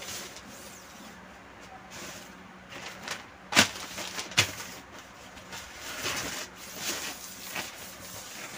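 Newspaper rustling and rubbing over the glass of an opened LCD TV panel in repeated wiping strokes. Two sharp knocks, a little under a second apart, come about halfway through and are the loudest sounds.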